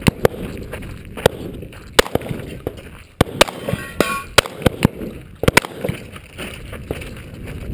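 Shotgun firing a string of about a dozen sharp shots, some in quick pairs and threes with pauses between, mixed with the clang of steel targets being hit.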